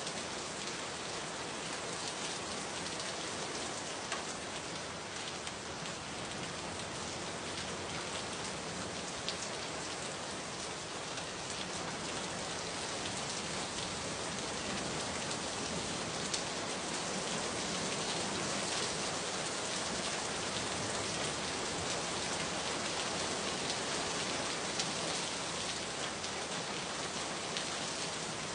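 Steady rain falling on a surface, a dense even patter with scattered individual drops.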